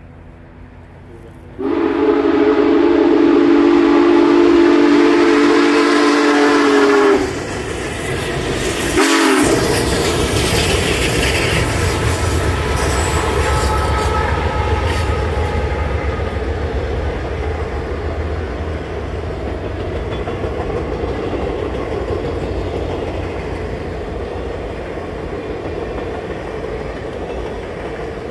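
Union Pacific 4014 'Big Boy' steam locomotive's whistle blowing one long blast of about five seconds, then the steady rumble and clatter of the train rolling past, slowly fading.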